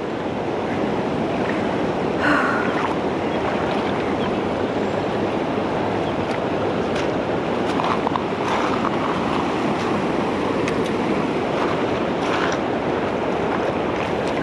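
Steady rush of creek water pouring over a shallow rocky riffle, with a few brief faint clicks here and there.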